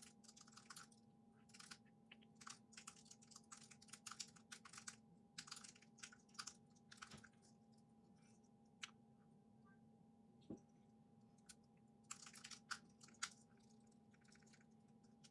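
Faint typing on a computer keyboard: quick runs of key clicks for about seven seconds, then only a few lone clicks, then another short burst about twelve seconds in.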